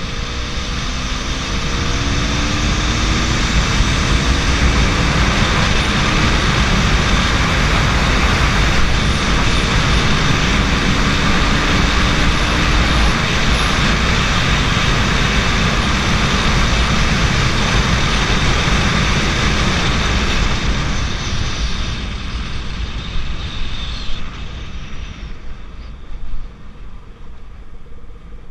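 KTM RC 200's single-cylinder engine pulling with slowly rising pitch, under a loud, steady rush of wind noise at speed. The rush dies down over the last few seconds.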